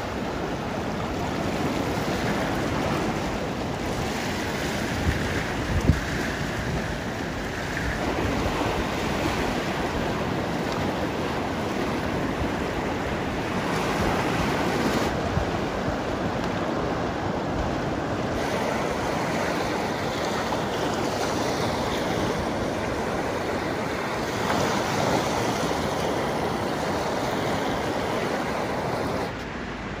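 Small waves washing and lapping onto a sandy shore in a steady hiss, with wind gusting on the microphone and a brief low thump about six seconds in.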